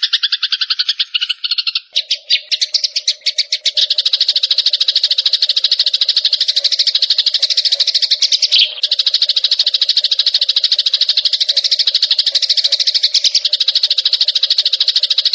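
Small songbird chattering in a very fast, unbroken trill of high, rapidly repeated notes, part of a mixed songbird training recording.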